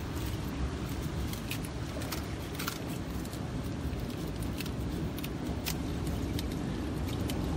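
Small scissors snipping at a sea urchin's spines, a scattering of sharp clicks, over a steady low rumble of wind and surf.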